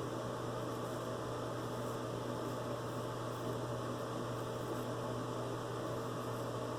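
Steady low electrical hum with a faint even hiss underneath; no distinct strokes or knocks stand out.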